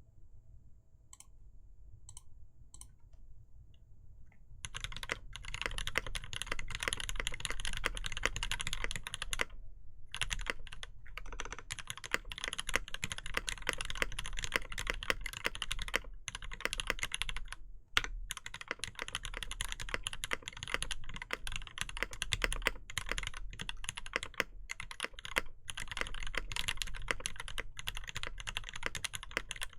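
Typing on a custom mechanical keyboard with lubed and filmed Gateron Ink linear switches in an aluminium plate, with GMK keycaps and no case foam. A few soft scattered keystrokes, then fast continuous typing from about four and a half seconds in, broken by a few short pauses.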